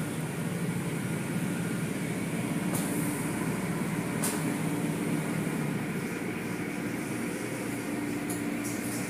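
Automatic car wash machinery running with water spraying: a steady hum and hiss, with two short hisses about three and four seconds in and a quick run of light tapping starting near the end.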